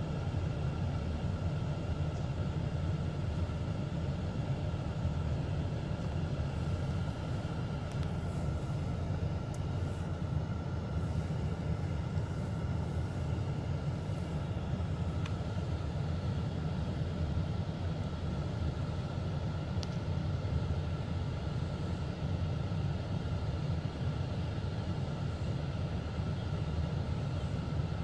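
Steady low rumble heard inside a stationary car's cabin, with faint steady higher tones above it.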